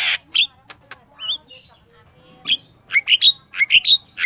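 Sooty-headed bulbul calling. There is a harsh note at the very start, then a few scattered notes and a wavering whistle, and from about halfway on a quick run of sharp, repeated chirps.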